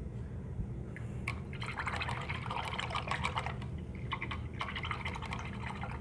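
A paintbrush swished and rinsed in a jar of water: a run of irregular splashing, dripping liquid sounds beginning about a second in, over a steady low background hum.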